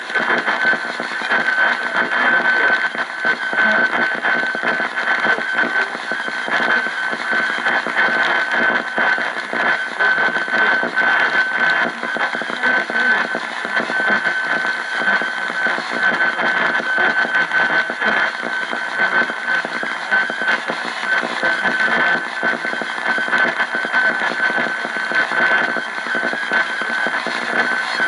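AM radio receiver tuned to a weak station, giving dense crackling static with a steady high whistle running through it.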